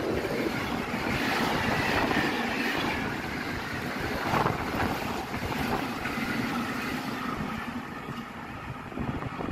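Freight train of flat wagons loaded with tank containers rolling past at speed, the wheels rumbling and clattering over the rails with a few knocks. The noise drops near the end as the last wagon passes.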